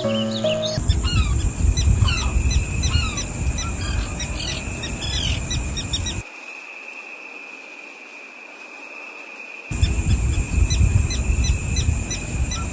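Small birds chirping, many short quick calls several times a second, over a steady thin high hum. A low rumble underneath drops away for about three seconds in the middle and then returns.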